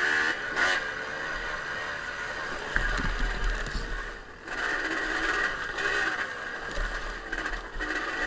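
Off-road vehicle engine running with its pitch rising and falling as the throttle changes, easing off briefly about four seconds in.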